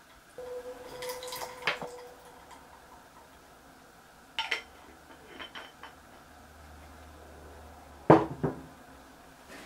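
Kitchen utensils and dishes clinking as seasonings are spooned in: a few separate clinks and knocks, the loudest about eight seconds in.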